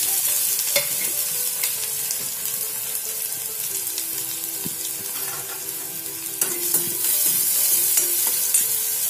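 Chopped onion sizzling and frying in hot oil with cumin in an iron kadhai over a medium gas flame, with a few clicks and scrapes of a steel spoon stirring it against the pan.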